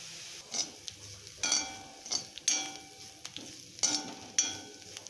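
Metal spatula stirring and scraping grated coconut mix around a frying pan over a faint sizzle. There are about six separate scrapes, each with a short metallic ring from the pan.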